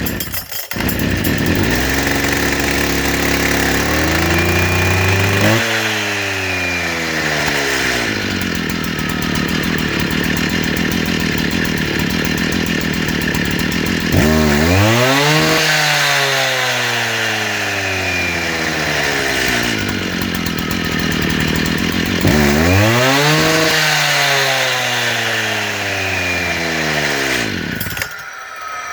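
Makita DPC7311 concrete saw's two-stroke engine running just after a cold start, revved up to high speed three times, each rev held for several seconds before falling back, then dying away near the end.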